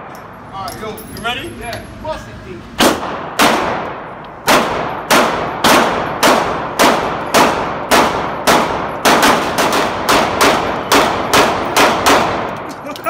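Pistol shots on an indoor shooting range: a string of about twenty rounds starting about three seconds in, quickening to about three a second, each crack followed by a short echo off the range walls.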